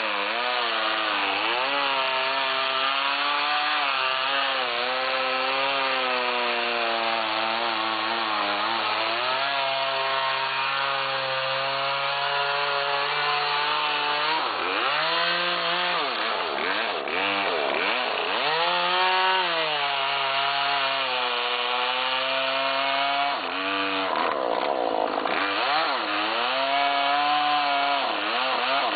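Chainsaw cutting down through stacked tulip poplar logs, running steadily under load. The engine's pitch wanders as it works and dips sharply several times in the second half as the chain bites harder into the wood, then recovers.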